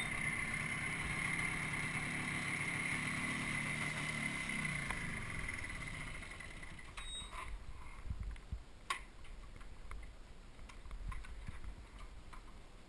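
Small motor scooter engine running with a steady high whine, its note falling and fading out about five to six seconds in. After that, low rumbling wind on the microphone and a few sharp clicks, the loudest about nine seconds in.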